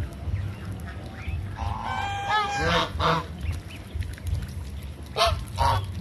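Domestic geese honking. A run of honks comes about two seconds in, and two more short honks follow near the end.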